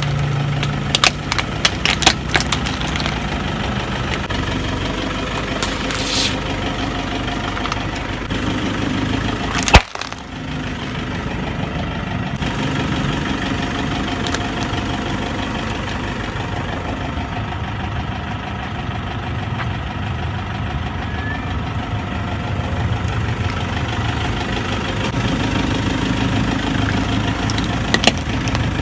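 Car engine idling steadily while a tyre rolls slowly over small objects on paving. Sharp cracks and snaps of plastic near the start as a toy figure is crushed, one single loud crack about ten seconds in, and a few more cracks near the end.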